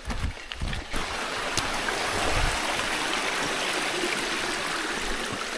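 A mountain stream rushing steadily, coming in strongly about a second in, with a few low thumps at the start.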